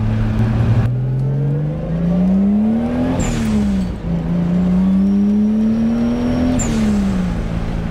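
Toyota Supra MK3's turbocharged 7M-GTE inline-six pulling hard through the gears, heard from inside the cabin. The revs climb, fall at a shift about three seconds in, then climb and fall again at a second shift near the end, with a brief high chirp at each shift.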